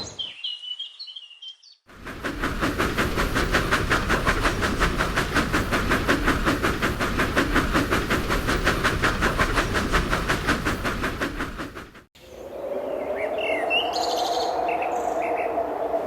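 Dubbed steam-locomotive sound effect: brief birdsong, then a fast, even beat of exhaust chuffs for about ten seconds that cuts off abruptly. After the cut a long, steady, whistle-like tone sounds over scattered bird chirps.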